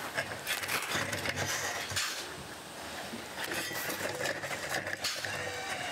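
Shovels scooping sawdust and tipping it into plastic wheelbarrows: irregular scraping and rustling with scattered short scrapes and thuds.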